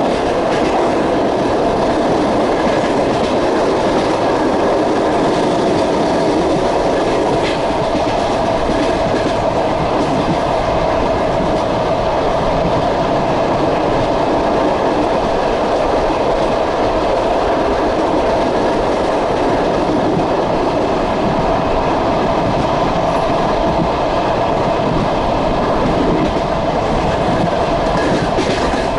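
Passenger train's wheels rumbling and clattering over the rails at speed, heard from aboard the moving carriage.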